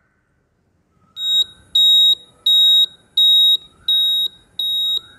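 Quiz countdown timer sound effect: after about a second of silence, a high electronic beep repeats about every 0.7 seconds, about six times.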